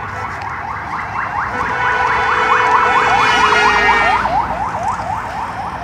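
Electronic yelp siren of a passing vehicle: a rapidly repeated rising wail, several sweeps a second, growing louder and then fading away.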